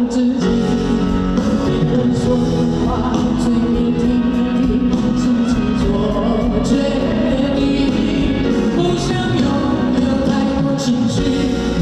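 Live rock band playing with a singing voice over it, drums and cymbals keeping a steady beat.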